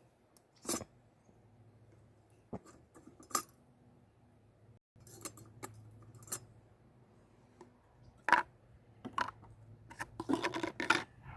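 Scattered light clinks, scrapes and rustles from handling a metal cooking pot and a foil food pouch, with the sharpest clink about eight seconds in and a quick run of clatter near the end.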